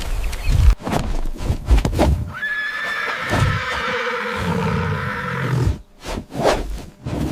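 Horse whinnying: after a few thuds, a long quavering neigh starts about two seconds in and lasts over three seconds, followed by a short second call near the end.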